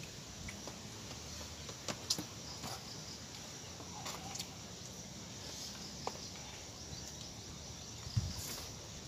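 Outdoor ambience with a steady high insect hum, scattered small clicks and taps from hands picking food off banana leaves and out of a plastic tub, and a dull thump near the end.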